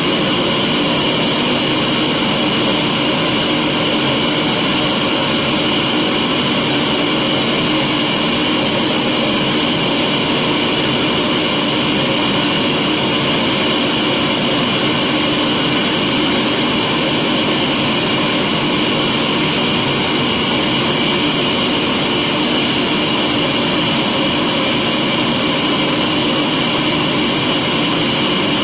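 Vacuum cleaner motor running steadily, a constant whining hum with no change in pitch.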